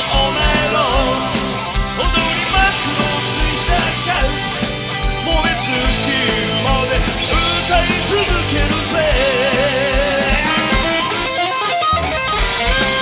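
Live rock band playing loud: distorted electric guitars, keyboards, bass and drums with a steady kick-drum beat, with a male lead vocal singing. The drums drop out for a moment near the end before a held chord.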